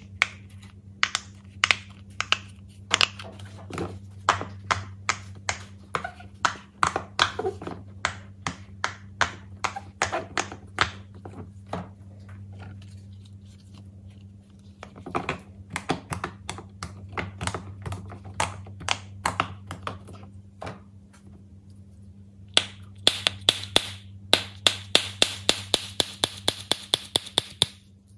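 Silicone pop-it fidget toy bubbles being pressed through, making a long series of sharp pops, about two a second. After a short lull, the pops come faster and brighter near the end.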